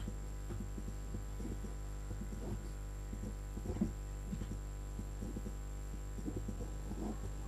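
Steady low electrical hum with a thin high whine above it, and faint scattered clicks through it.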